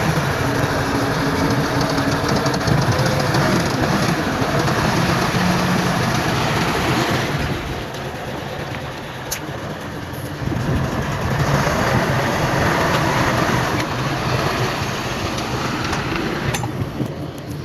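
Heavy diesel earthmoving machinery running with a dense, noisy rumble that drops quieter about eight seconds in and picks up again a couple of seconds later, with two sharp clanks.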